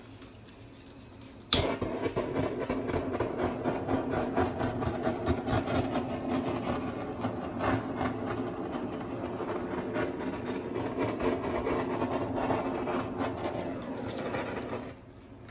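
Small handheld dryer switched on with a click about a second and a half in, running steadily as it blows air across wet acrylic paint to spread it, then switched off shortly before the end.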